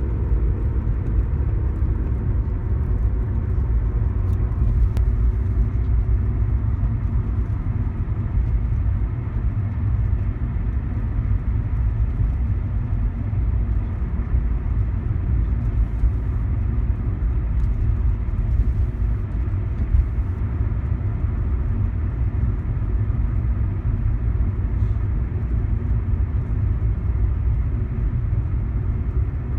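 A car running with a steady low rumble and faint steady tones above it: the noise the owner calls funny.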